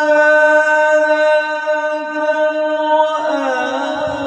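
A male reciter chanting the Quran in the melodic recitation style, holding one long note for about three seconds, then breaking into wavering, ornamented turns near the end.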